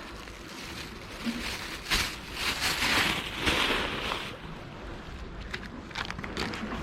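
Sea water washing among breakwater tetrapods, with wind on the microphone; a surge of wash swells and fades between about two and four seconds in, and there are a few light clicks of handling.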